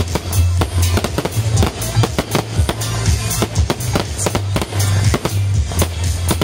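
Aerial fireworks shells and cakes bursting in rapid succession: a dense run of bangs and crackles several times a second, over music with a heavy bass line.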